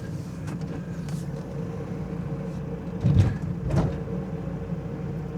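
Renault Trafic van driving slowly, heard from inside the cabin: a steady low engine and road rumble with a faint steady hum, and a single thump about three seconds in.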